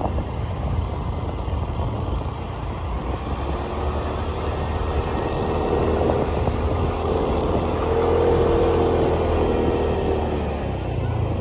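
Small motorbike engine running while riding along, heard from on the bike with wind and road rush. The engine note comes through more clearly around the middle.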